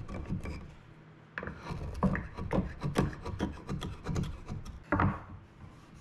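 Wood chisel paring and scraping the walls of a mortise in a hard maple leg, pushed by hand: an irregular run of short wooden scrapes and clicks, with a brief lull about a second in and a sharper stroke near the end.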